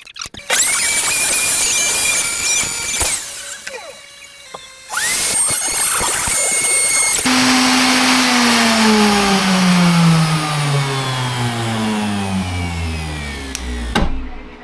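Electric wood router switched on twice: each time it spins up to a steady high whine. The first run stops after about two and a half seconds. The second is switched off after about two seconds and winds down over roughly seven seconds, its pitch falling steadily, before a sharp knock near the end.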